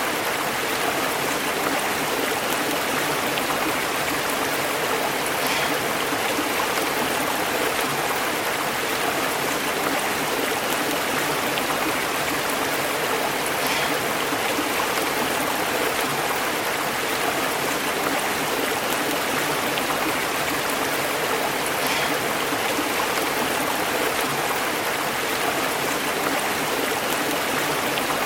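Stream water flowing and burbling over rocks, a steady rushing and bubbling.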